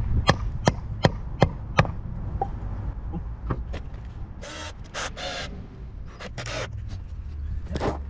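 A hammer knocking a wooden brace into place against the formwork, five quick blows in the first two seconds. About halfway through, a cordless drill runs in a few short bursts.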